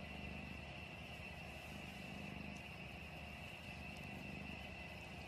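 Cat purring softly: a low, steady rumble that swells and eases every couple of seconds with its breaths, with a faint steady high whine behind it.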